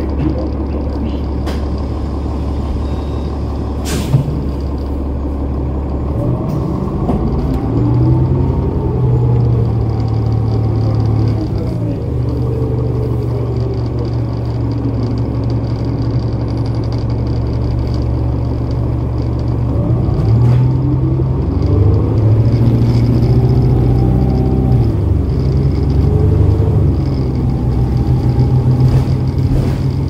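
Cummins ISL9 diesel engine of a New Flyer Xcelsior XD40 city bus idling, then pulling away about six seconds in, its note climbing and falling as the Allison B400R automatic works through the gears, and doing so again about twenty seconds in, with a steady drone in between. A single sharp click about four seconds in.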